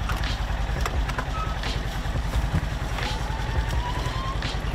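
Polaris Ranger XP 1000 side-by-side idling with a steady low rumble from its parallel-twin engine. A few short knocks and clicks come as the cab door is opened and someone climbs in.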